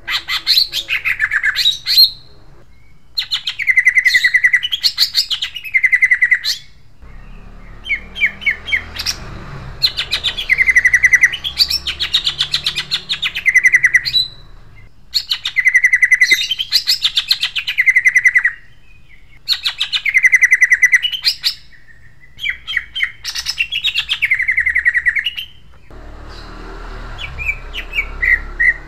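Male green leafbird (cucak ijo) singing a harsh, sharp rolling song: about eight loud phrases of two to three seconds each, fast runs of sweeping notes rising and falling, with short pauses between them.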